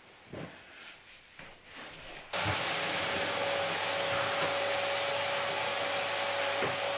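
A vacuum cleaner starts abruptly a little over two seconds in and runs steadily, an even rushing noise with a steady whine and a low hum. Before it there are only a few faint knocks.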